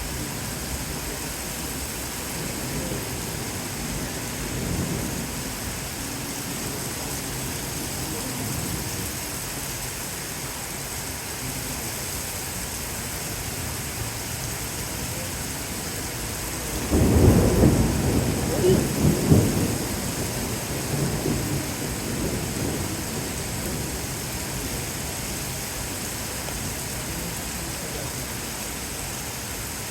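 Steady rain falling, with a low rolling rumble of thunder that swells about seventeen seconds in and dies away over a few seconds.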